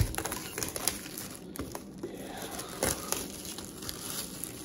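Clear plastic shrink-wrap being torn and peeled off an iPad mini box, crinkling and crackling, with a sharp snap as it begins.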